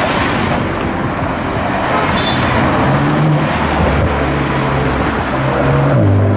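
Road traffic with a car engine running loud and close, its pitch shifting up and down several times over a steady rush of traffic noise.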